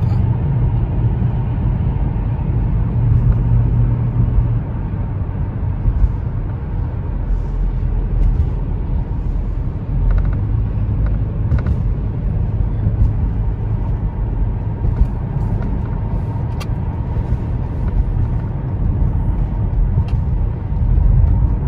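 Steady low rumble of a car's engine and tyres on the road, heard from inside the cabin while driving, with a few faint ticks.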